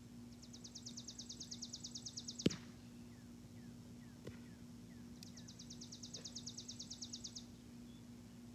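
A small bird's high, rapid, dry trill, about two seconds long and heard twice, each growing louder toward its end. A single sharp click about two and a half seconds in.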